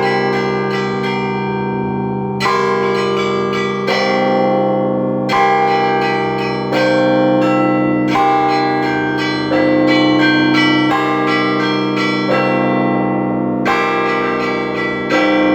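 Cathedral bells ringing: clusters of quick strikes on several smaller bells, repeating every second or so with a short lull near the start, over the steady hum of larger bells.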